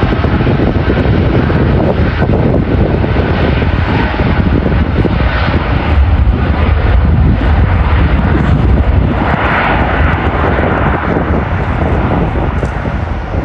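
Boeing 787 Dreamliner's twin turbofan engines at takeoff thrust during the takeoff roll, a loud, steady rush of jet noise.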